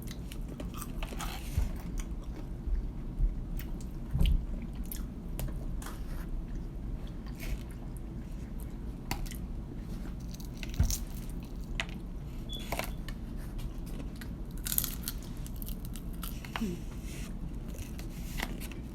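Close-miked eating of KFC fried chicken: crunchy bites and chewing, with scattered crisp crackles and a few louder crunches, over a steady low hum.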